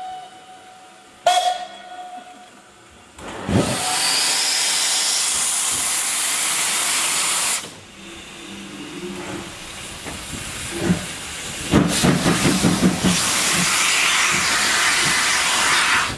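Steam locomotive venting steam low down around its cylinders in two long, loud hisses, with a short sharp knock about a second in and quick pulsing at the start of the second hiss.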